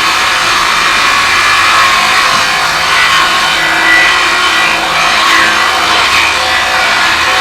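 Angle grinder with a cutting disc cutting through a pipe: a loud, steady grinding noise.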